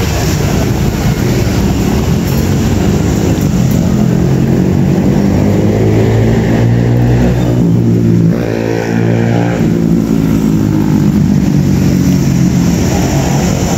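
Motorcycle and car engines running past on a busy street, with one engine passing close about halfway through, its pitch sliding as it goes by.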